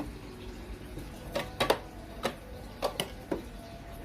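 Light knocks and clatters of small objects being handled, about six over two seconds, starting about a second and a half in.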